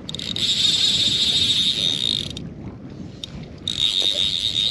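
Fly reel's click-and-pawl drag ratcheting rapidly as the spool turns under a hooked fish, in two runs of about two seconds with a short pause between them.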